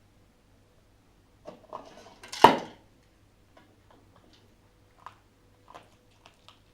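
Pieces of a dog's puzzle toy being knocked about: a short clatter that ends in one loud knock, then a few light clicks.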